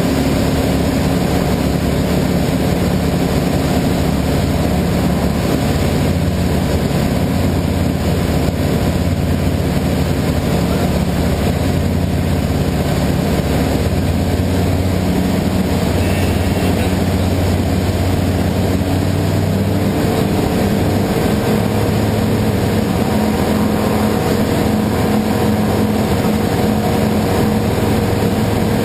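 Ultralight aircraft's engine and propeller droning steadily in flight, heard from inside the cockpit over a steady rush of wind. The engine note changes about twenty seconds in.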